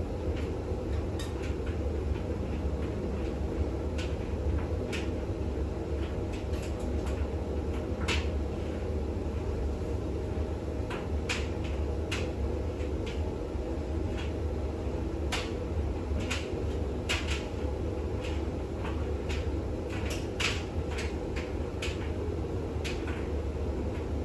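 Bosch WAX32GH1 front-loading washing machine spinning a full load in the intermediate spin of its wash cycle, a steady low hum and rumble. Irregular sharp clicks and ticks sound over it throughout.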